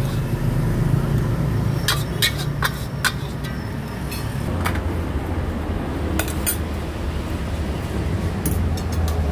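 Metal spatula clanking and scraping against a wok as noodles are stir-fried, with irregular sharp clinks over a steady low rumble.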